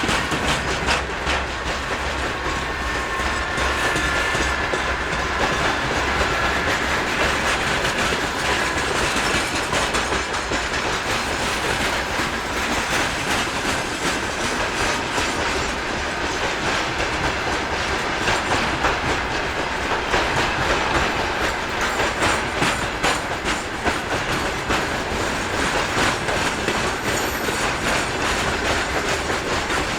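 Freight train wagons rolling past, wheels clicking over rail joints. A faint high whine slowly falls in pitch over the first half.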